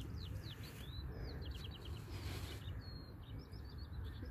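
Songbirds chirping and singing, a steady run of short high chirps with a quick trill about a second and a half in, over a steady low rumble. A brief rustle comes just after the middle.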